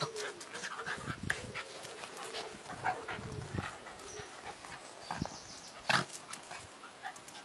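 A dachshund and a small fluffy dog play-fighting, with low growling and grunting, scuffling and many short clicks. A single louder sharp sound comes about six seconds in.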